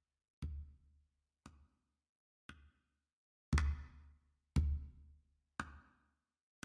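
Background music: a steady beat of bass-drum hits, about one a second, with the hits louder from about halfway through.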